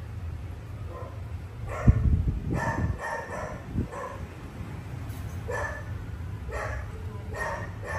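A dog barking in short, repeated barks, roughly one a second. A loud thump with some handling rustle comes about two seconds in.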